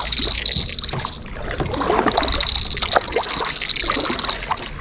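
Stream water splashing and sloshing irregularly, with a steady high-pitched whine behind it that fades out near the end.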